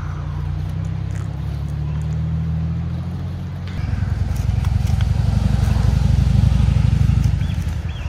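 A motor vehicle engine running nearby with a low, steady hum, getting louder and rougher about four seconds in and easing off near the end. Faint scrapes of a knife shaving a feather stick from dry kindling can be heard over it.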